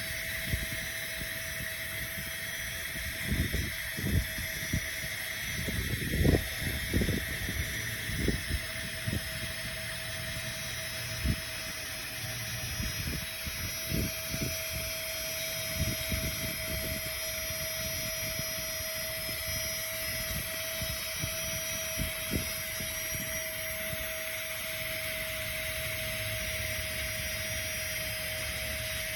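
Small battery-powered portable air pump running steadily, its motor giving an even whine with a steady hum, with scattered low bumps in the first half.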